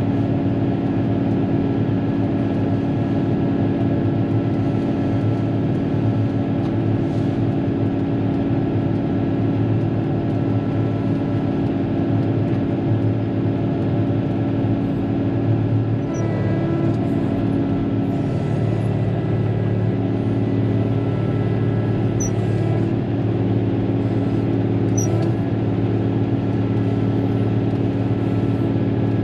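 Caterpillar motor grader's diesel engine running steadily as the grader travels and grades, heard from inside the cab. The engine tone shifts slightly about halfway through.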